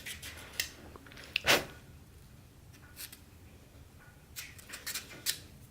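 Quiet handling of a plastic statue part and small hand tools: scattered light clicks and taps, with one louder short scrape about a second and a half in.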